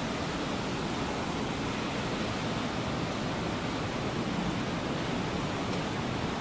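Steady rushing of a cave's underground stream, an even hiss of flowing water that does not change.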